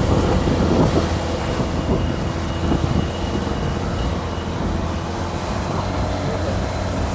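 A vehicle engine running steadily, with a low rumble.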